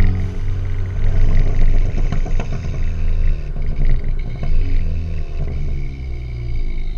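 Ford Focus ST's turbocharged 2.0-litre EcoBoost four-cylinder through an aftermarket exhaust, the revs dropping just after the start with a couple of seconds of popping and crackling from the tailpipes, then settling into a steadier engine note. The crackle on overrun comes from a flash tune set up for pops and crackles.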